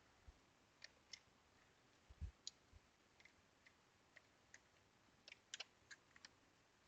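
Faint, scattered small clicks and a couple of soft taps from the plastic case and parts of a Sega Game Gear being handled during reassembly, with a quick run of clicks about five to six seconds in.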